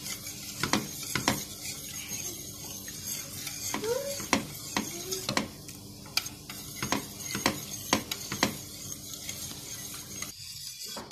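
Wire balloon whisk stirring a milk, starch and butter mixture in a pot over the heat, its wires clinking against the pot's sides every half second or so. The mixture is whisked without stopping so that the starch does not form lumps.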